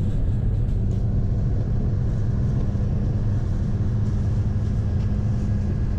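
Steady engine hum and road noise heard from inside a moving road vehicle.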